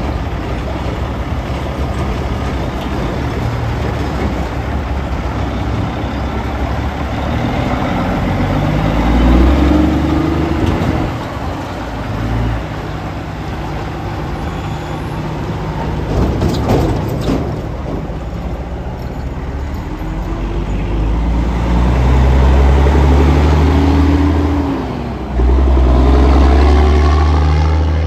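Diesel semi-truck engines pulling away and accelerating, the engine note climbing and dropping as the drivers shift through the gears. The loudest stretch comes near the end, as a tractor hauling an end-dump trailer pulls out close by.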